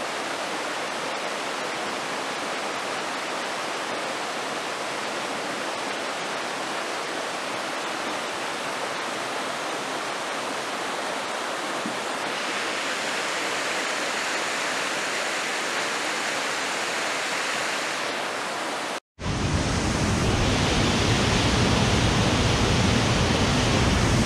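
Waterfall in heavy flow after a hurricane, rushing steadily. The sound cuts out for a moment about three-quarters through, then comes back deeper and a little louder.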